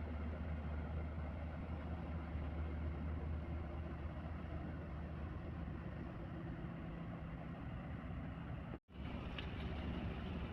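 Large passenger ship's engines running with a steady low drone, under a wash of wind and water noise; the sound cuts out for an instant about nine seconds in, then carries on.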